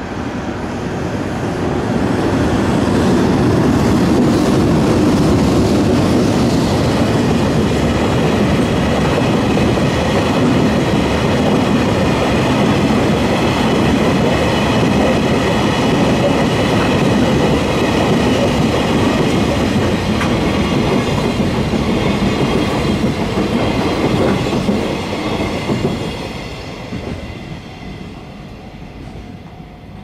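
Freight train of tank wagons passing over a level crossing, its wheels running loud and steady over the rails. The train noise builds in the first two seconds and fades away from about 25 seconds in. Level-crossing bells ring throughout and are still ringing after the train has gone.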